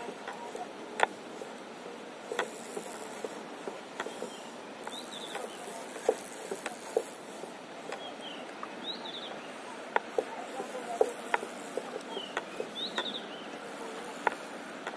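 Small wavelets lapping against a paddleboard at water level: irregular sharp clicks and plinks over a steady watery wash. A bird chirps in short bursts of three or four high notes a few times.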